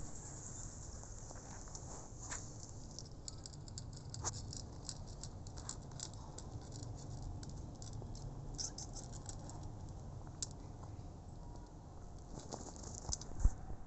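A cat chewing dry kibble: a long run of quick, crisp crunching clicks as she eats, over a steady low rumble. One sharp thump stands out near the end.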